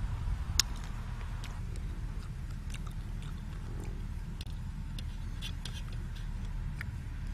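A steady low rumble with scattered faint clicks and ticks.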